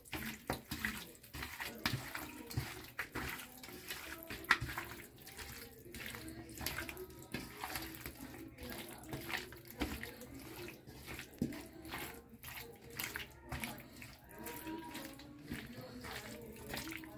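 Hand squishing and kneading raw chicken necks and tails in a wet yogurt-and-spice marinade in a steel bowl: irregular soft wet squelches and slaps.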